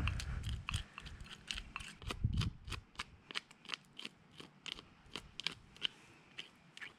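A cheap plastic fish scaler scraping scales off a fish wing in quick repeated strokes, each one a short rasping scrape, about three or four a second.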